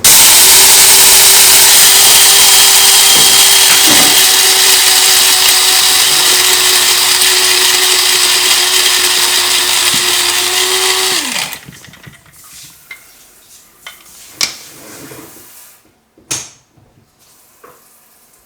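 Electric coffee grinder grinding coffee beans fine, to the texture of table salt: a loud, steady motor whir that cuts off about eleven seconds in, the pitch dropping as it winds down. A few light clicks and knocks follow.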